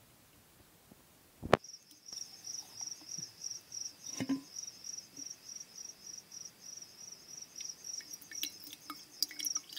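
A cricket chirping in a steady, high-pitched, evenly pulsing trill, starting just after a sharp click about a second and a half in. A dull knock comes around four seconds in, and small wet clicks near the end come from hands working butter in buttermilk in a steel bowl.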